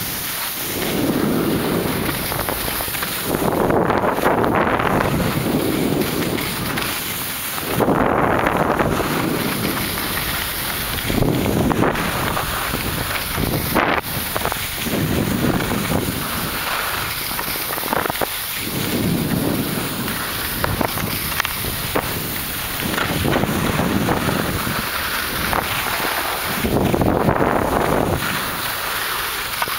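Wind rushing over the camera microphone while skis slide and scrape on packed snow during a downhill run. The noise swells and eases every few seconds.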